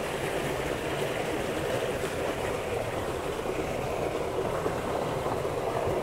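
Steady rush of fast water in a drainage ditch running high after heavy rain and flooding, pouring over rocks.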